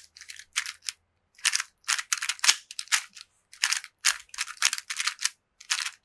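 Plastic 3x3 speed cube being turned fast with fingertricks: rapid clacking clicks of its layers snapping round, in quick runs of several turns with brief pauses between.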